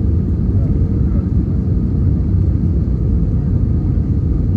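Steady low roar inside the cabin of an Airbus A320neo on approach with the landing gear down: engine and airflow noise, with a faint steady hum above it.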